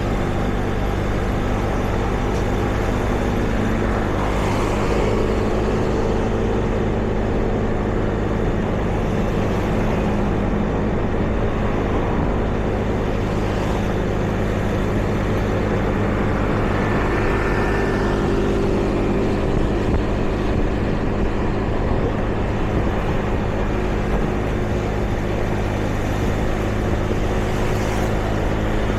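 City street traffic: a steady low hum of engines running, with several vehicles passing by one after another.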